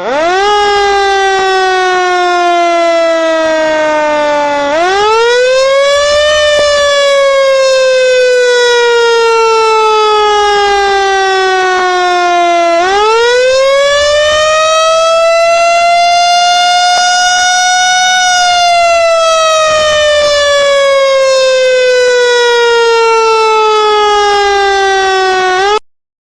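A siren wailing, its pitch climbing quickly and then sliding slowly down, three times over. It cuts off abruptly near the end.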